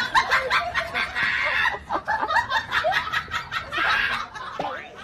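High-pitched laughter in quick repeated bursts, strongest in the first two seconds and again about four seconds in.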